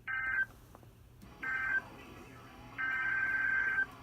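EAS/SAME digital data bursts from a NOAA Weather Radio broadcast: two short, shrill warbling bursts, at the start and about a second and a half in, close the warning just read (end-of-message tones). About three seconds in, a longer burst of about a second begins the header of the next alert.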